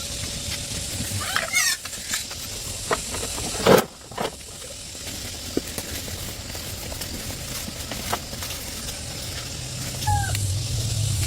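Chickens clucking a few times, with one loud knock about a third of the way in and a low hum coming up near the end.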